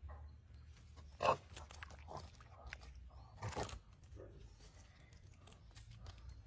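Komodo dragon biting at a wild pig in wet mud: short wet crunching and squelching sounds, the loudest about a second in and another at three and a half seconds, over a low hum.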